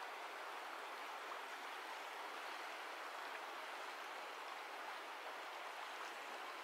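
Steady, even rush of a clear mountain river flowing.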